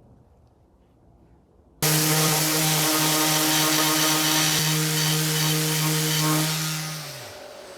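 An electric power tool's motor starts abruptly at full speed and runs with a steady hum and hiss. About five seconds later it is switched off, and its pitch and loudness fall as it winds down.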